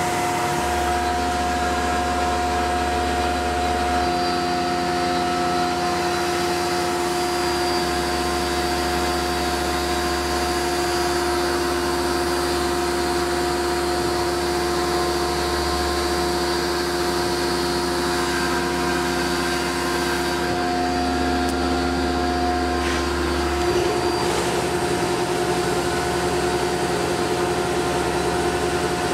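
Tormach PCNC 1100 CNC mill running as an end mill cuts the profile of an aluminum block: a steady machining hum with several held whining tones. The pitch and the low hum change about 24 seconds in.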